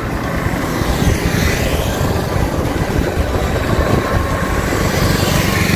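Steady road noise from riding in a vehicle along a rain-wet road, with low, uneven wind buffeting on the microphone.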